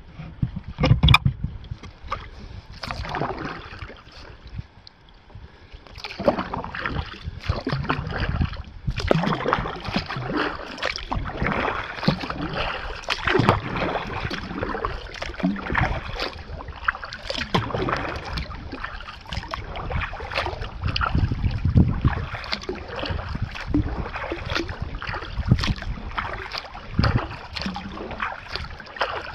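Kayak paddling: the paddle blades dip and splash in lake water stroke after stroke. The splashing is lighter for the first few seconds and then comes steadily.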